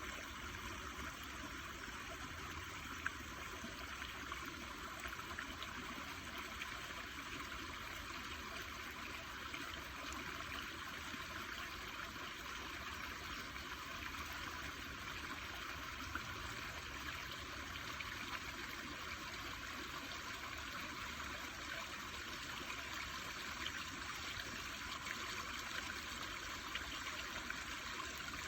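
Running water trickling steadily, as from a small stream, with a brief click about three seconds in.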